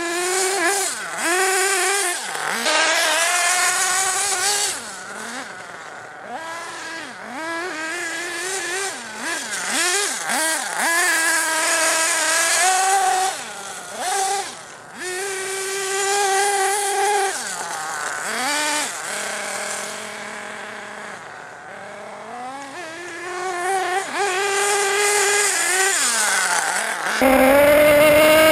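Nitro Star F4.6 glow engine of a 1/8-scale HPI Nitro Trophy truggy revving up and down over and over as the truck is driven and drifted, with a brief steady idle about two-thirds of the way in. Near the end it is suddenly much louder and closer, heard from right on the truck.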